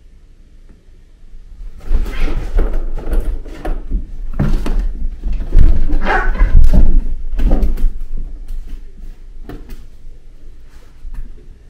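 Cats play-fighting: a loud, irregular scuffle of thumps and knocks starts about two seconds in, peaks midway and dies away to a few light taps near the end.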